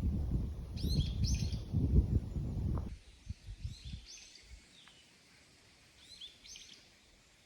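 A small bird calling repeatedly, a short phrase of quick high chirps every two to three seconds. For the first three seconds a loud low rumble sits under it, then stops abruptly.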